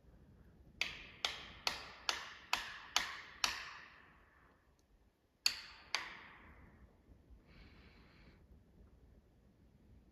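Hammer blows driving a felling wedge into the cut of an oak: seven quick strikes about twice a second, then two more a moment later, each with a ringing tail. The tree is not tipping on the wedges already in, so another wedge is being driven.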